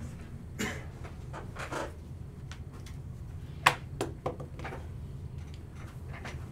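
Handling noise: scattered rustles and short clicks, with one sharp click a little past halfway, over a low steady hum.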